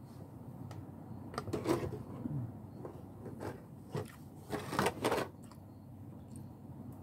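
A person eating: chewing and mouth noises mixed with scattered small clicks and rustles of handling, the loudest cluster about five seconds in.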